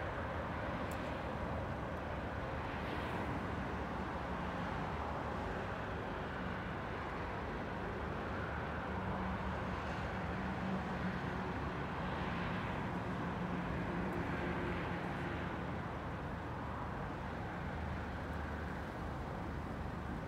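Steady outdoor road-traffic ambience, an even continuous rumble with no single event standing out.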